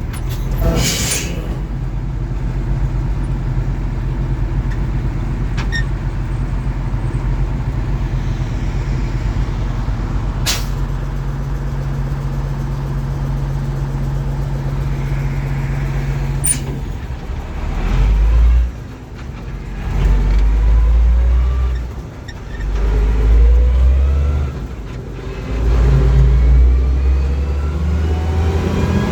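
MB-trac 1300 tractor's turbocharged six-cylinder diesel engine running steadily under load. From a little past halfway it revs up and drops back four times in quick succession, the pitch rising with each surge. A few short sharp knocks come through in the first half.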